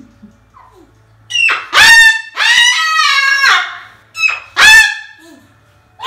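Moluccan cockatoo screaming: about five loud calls, starting a second or so in, the middle one held for about a second.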